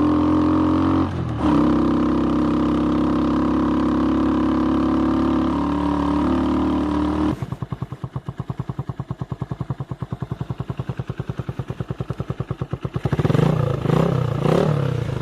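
Skygo Boss 150 single-cylinder engine with a bottle-pipe exhaust and Nibbi PE26 carburettor, first pulling at steady revs on a hill climb, with a brief dip about a second in. About seven seconds in it cuts to a hot idle with a rapid, even putting, and near the end it is revved twice, the pitch rising and falling.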